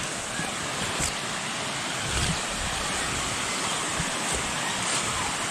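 Steady rushing of a woodland creek spilling over small rock cascades and waterfalls. A few soft low thumps sound through it, the strongest about two seconds in.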